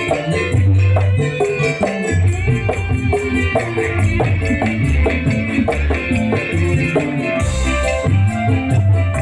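Drum band playing dangdut koplo music through a loud sound system: busy, rhythmic percussion over heavy bass drum beats, with a brief burst of high hiss about seven and a half seconds in.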